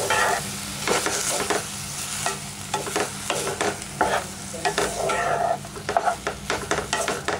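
Wooden spatula stirring and scraping rice string hoppers (idiyappam) in ghee and milky almond paste around a non-stick pan over low heat, with irregular scrapes and taps against the pan over a sizzle.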